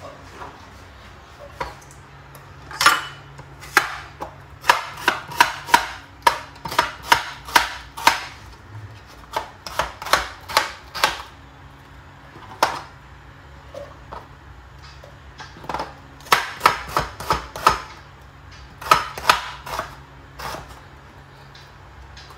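Kitchen knife chopping an onion on a plastic cutting board: sharp taps in runs of about two to three a second, broken by short pauses.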